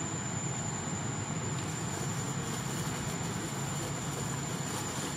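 Steady outdoor background noise: a continuous rushing hiss with a thin, high, steady whine above it.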